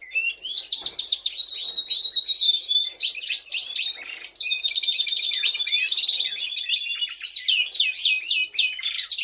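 Several Norwich canary cocks singing together, continuous rapid trills, rolls and warbles. Regular song like this is the sign that the cocks are fit and ready to breed.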